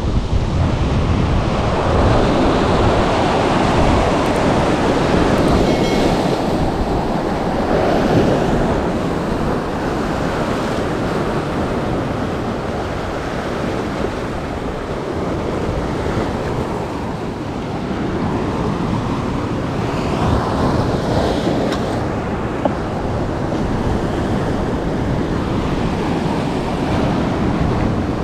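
Sea surf breaking and washing over a rocky shoreline, a continuous rush that swells and ebbs with each wave, with wind buffeting the microphone. One sharp tap about three-quarters of the way through.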